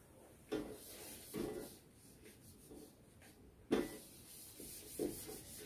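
Whiteboard duster wiping across a whiteboard: soft, faint rubbing swishes, with a sharp knock about three and a half seconds in.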